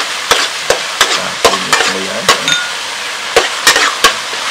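A metal spatula clanks and scrapes against a metal wok as chopped aromatics are stir-fried in hot oil, over a steady sizzle. The clanks come irregularly, about eleven of them, with a short pause a little past the middle.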